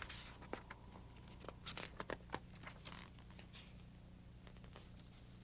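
Faint rustling and soft clicks of sketchbook pages being turned and handled, clustered in the first three seconds, over a low steady hum.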